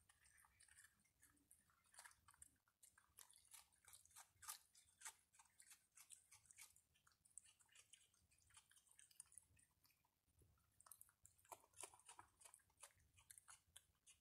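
An opossum and a raccoon chewing and crunching food, a quiet, irregular run of many small crunches and clicks.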